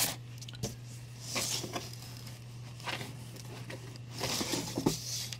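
Comic books being handled and set down out of a cardboard shipping box: several brief rustling swishes and a few light taps, over a low steady hum.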